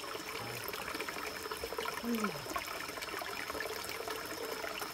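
Forest stream running and trickling steadily, with a faint, steady, high-pitched tone throughout and a brief murmured voice about two seconds in.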